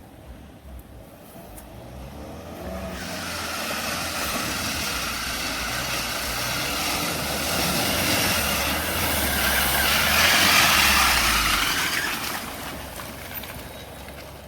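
Mitsubishi L200 pickup driving off-road, its engine running under load with a rushing noise over it. It grows louder over a few seconds, is loudest about three-quarters of the way through, then fades.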